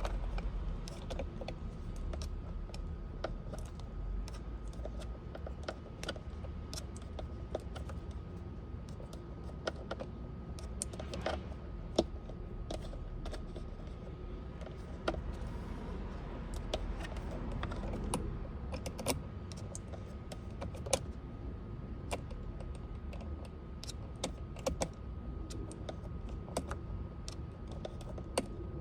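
Irregular light clicks and taps of hands and a tool working on a car's steering wheel and airbag trim, over a steady low hum and a faint steady tone.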